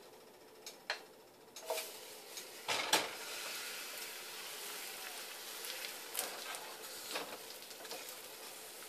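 Chickpea-flour batter hitting hot oil in a non-stick frying pan: a steady sizzle starts a couple of seconds in and keeps up. A spoon spreading the batter clicks and scrapes against the pan a few times, loudest about three seconds in.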